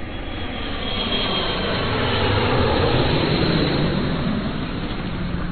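Jet airplane passing by: an even rushing jet engine noise that swells to a peak about halfway through and then slowly fades, with a faint high whine about a second in.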